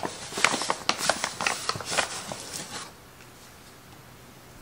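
A measuring cup digging and scraping through flour inside a paper flour bag, with the paper rustling; it stops about three seconds in.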